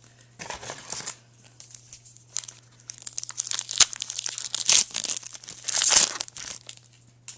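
Foil trading card pack wrapper being crinkled and torn open by hand, in irregular rustling bursts, loudest about four and six seconds in.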